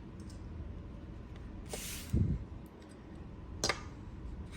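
Quiet handling of trading cards and pack wrappers on a table: a short rustle and a soft thump about two seconds in, then a single sharp click.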